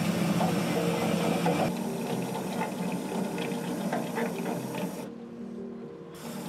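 Hydraulic longline hauler running as a longline is hauled aboard, a steady mechanical whine whose pitch shifts now and then. A hiss of water rides over it and falls away about five seconds in.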